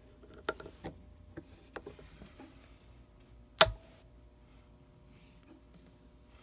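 A few sharp clicks and knocks, then one much louder thump with a deep low end about three and a half seconds in, over a faint steady hum.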